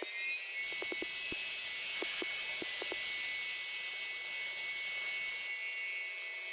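CNC machining centre spindle running at a steady high whine after spinning up. A loud hiss joins about half a second in, with a few light clicks in its first couple of seconds, and stops about a second before the end.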